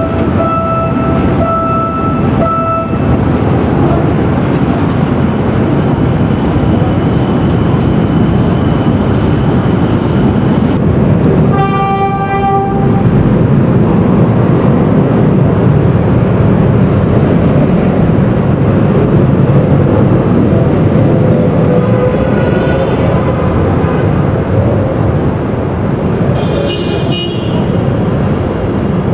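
Philippine National Railways diesel locomotive running past on the rails, a steady heavy rumble of engine and wheels. Its horn sounds once, for about a second and a half, about twelve seconds in.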